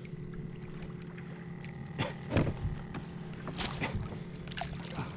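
Water lapping against a kayak hull, with several sharp knocks and splashes over a steady low hum.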